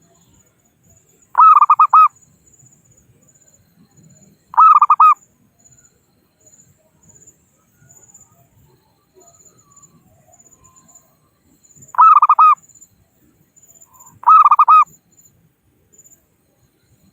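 Zebra dove (perkutut) calling: four short, loud bursts of fast, rolling cooing notes at one steady pitch. Two come close together near the start, and two more follow after a pause of several seconds.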